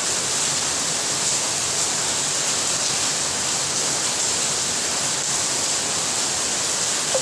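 Steady, even hiss of heavy rain pouring down.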